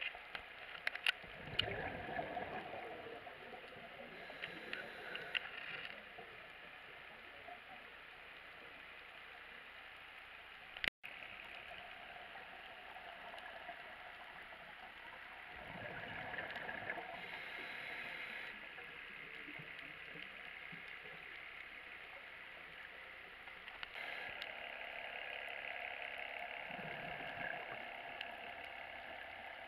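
Scuba regulator exhaust bubbles gurgling underwater over a steady hiss, in three bursts several seconds apart, muffled through the camera's underwater housing. There is a brief sharp click with a moment's dropout about eleven seconds in.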